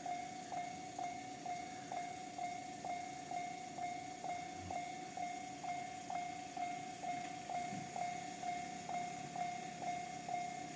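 Japanese railway level-crossing warning bell of the JR standard electronic type, ringing steadily at about two strikes a second.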